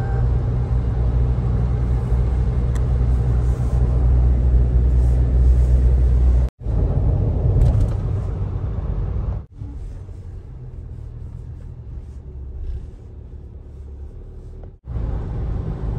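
Low, steady road and engine rumble inside a moving car's cabin, cut off abruptly a few times where clips are joined. From about nine and a half seconds in the rumble is quieter for about five seconds, then louder again.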